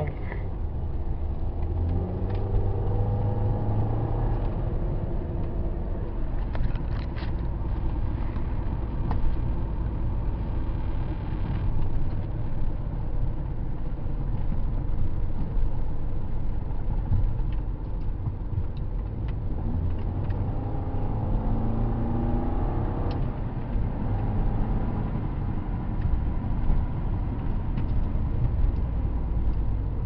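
Inside the cabin of a 2008 VW Passat with the 2.0T turbo four-cylinder running under way: a steady low rumble of engine and road. The engine note rises twice as it accelerates, a couple of seconds in and again around twenty seconds in, the second rise breaking off suddenly.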